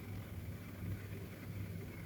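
Persian cat snoring in deep sleep: a low, steady rumble that swells and eases gently.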